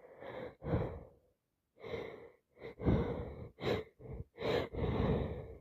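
A woman with a head cold breathing in short, gasping breaths: about nine breathy bursts with brief gaps between them, the last one the longest.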